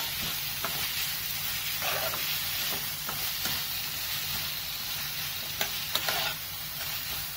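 Chopped onions and green chillies sizzling in oil in a frying pan as a metal spatula stirs them, with a few short scrapes and taps of the spatula against the pan.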